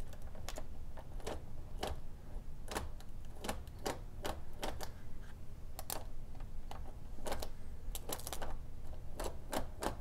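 Irregular clicking and crackling from an old HO scale locomotive's open-frame motor straining to turn under power while the loco is pushed along the track; it bounces on the rails and is throwing sparks at a badly worn commutator.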